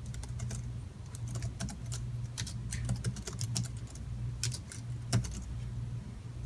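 Computer keyboard typing: quick, irregular keystrokes that stop about five and a half seconds in, over a steady low hum.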